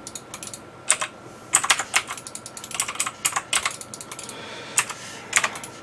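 Typing on a computer keyboard: irregular key clicks in quick clusters with short pauses between them.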